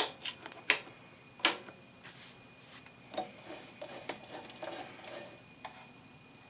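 Sharp clicks from the Central Machinery 93212 mini lathe's controls as it is switched on and set to slow forward, four in the first second and a half, then faint irregular clicking and rattling with no steady motor run.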